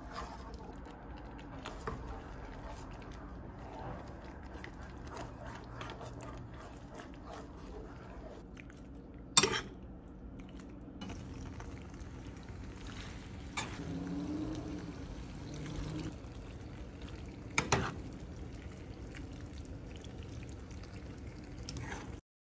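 Wooden spoon stirring a creamy tomato sauce and then penne in a frying pan, with soft wet stirring and scraping and many small clicks. Two sharp knocks stand out, about nine and eighteen seconds in.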